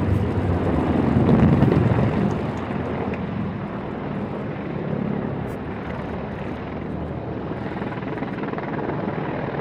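Several military attack helicopters flying overhead: a steady rotor and engine din, louder for the first two seconds and then a little quieter and even.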